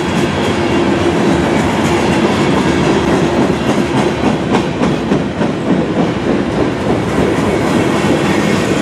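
CN freight train rolling past loudly: a steady rumble of wheels on rail with scattered clicks as the wheels cross rail joints, and a steady tone under it through the first half.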